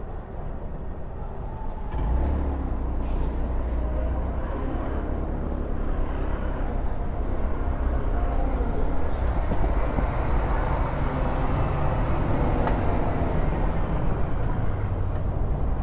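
City street traffic: vehicle engines and tyre noise, with a low engine rumble that rises about two seconds in and holds steady. There is a brief high squeak near the end.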